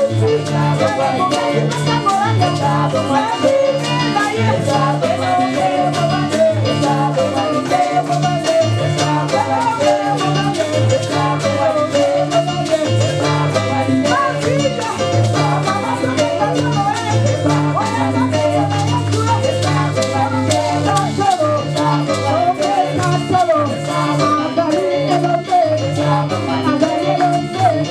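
Live Congolese gospel music: a woman singing the lead into a microphone, with backing singers, over a band with drum kit, guitar and keyboard keeping a steady repeating rhythm.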